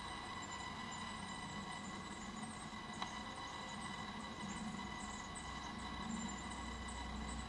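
Steady electronic hum of a Tamron zoom lens's optical image stabilizer: several fixed whining tones sounding at once over a low rumble. A single faint click comes about three seconds in.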